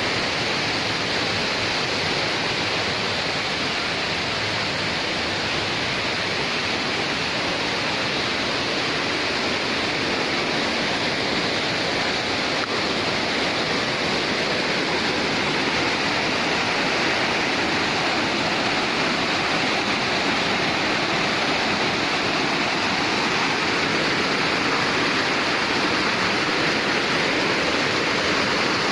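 Waterfall: a steady, loud rush of falling water pouring into a pool.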